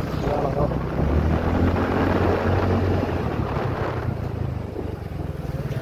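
TVS Ntorq 125 scooter's single-cylinder engine pulling hard under full throttle, its pitch rising, with wind rushing over the microphone. It eases off about four seconds in.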